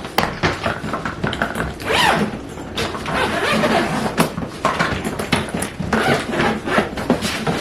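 A suitcase being handled and opened: repeated clicks and knocks with rustling, and a short rasp about two seconds in.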